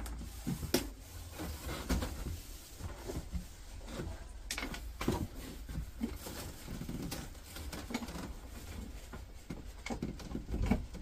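Scattered clicks and knocks of hand tools and small metal parts being picked up and set down on a cluttered workbench, over a low steady hum; no power tool is running.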